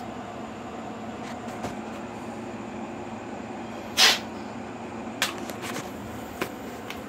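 Handling noises during the engine work: one sharp clatter about four seconds in, then a few light clicks, over a steady background hum.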